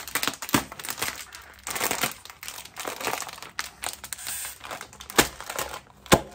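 Plastic bag of chips crinkling as the chips inside are crushed by hand. Continuous rustling with small crackles, and a few sharp crunches, the loudest about five and six seconds in.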